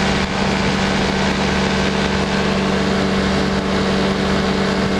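Powered parachute's engine and propeller running steadily in level flight, a constant tone with a rush of noise over it.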